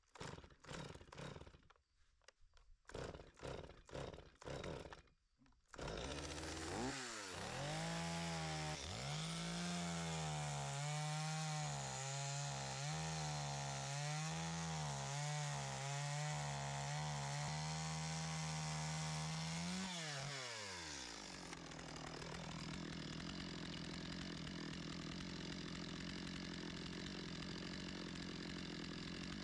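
A few scattered short knocks, then about six seconds in a chainsaw comes up to speed and cuts wood at high revs for about fourteen seconds, its pitch wavering as the load changes; around twenty seconds in the revs drop and it settles into a quieter steady running sound. This is the final cut across the bottom of a carved log.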